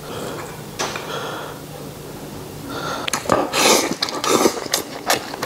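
A person eating a mouthful of saucy braised beef and rice off chopsticks. It is quiet at first, then loud, wet biting and chewing sounds start about three seconds in.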